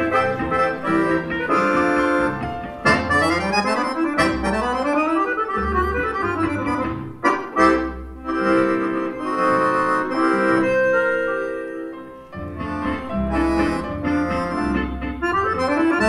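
A bayan (button accordion) playing a waltz with a small string ensemble of violins and double bass, marked by sweeping rising and falling runs.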